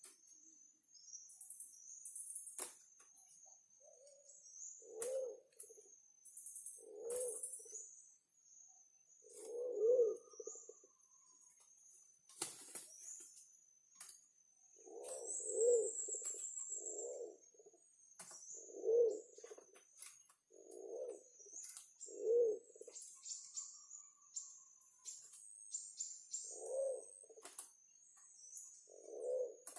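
Forest pigeon cooing: a series of low, short single coos, one every one to three seconds, with faint high chirping above.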